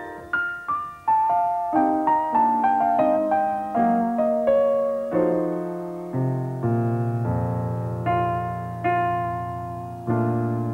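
Grand piano played solo: a run of quick melody notes that settles into long held chords over low bass notes about six seconds in.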